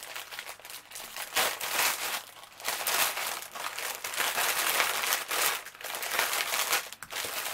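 Clear plastic packaging bag crinkling in irregular bursts as hands pull it open and handle the small drill bags inside.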